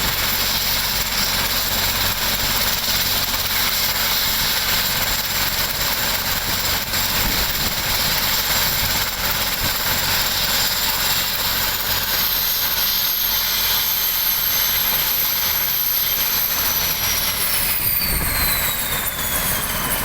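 Aircraft turbine engine running loud, a rushing blast with a thin high whine; about twelve seconds in the whine starts to fall in pitch and drops quickly near the end, as the engine winds down or moves off.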